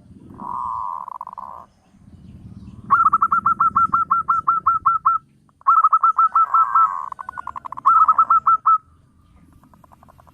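Zebra dove (perkutut) calling: a short buzzy rolling note, then two long runs of quick staccato coos at about five or six a second, fading out near the end.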